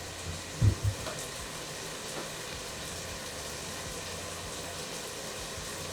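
Tomatoes and garlic sizzling steadily in a hot pan, with two dull thumps close together just under a second in.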